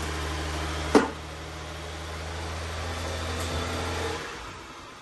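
A steady low mechanical hum, like a motor or engine running, with one sharp click about a second in; the hum stops about four seconds in.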